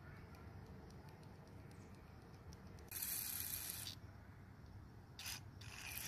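Aerosol carburetor cleaner hissing through its red extension straw into a mower's carburetor, one spray about a second long in the middle, then two short bursts near the end, to wash gum and varnish out of the carburetor.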